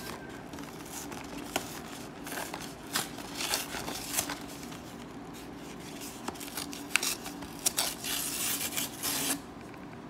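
Cardboard and plastic packaging of a Pokémon Hidden Fates collector box being forced open by hand: irregular snaps, scrapes and crinkling, with a longer rough tearing stretch near the end.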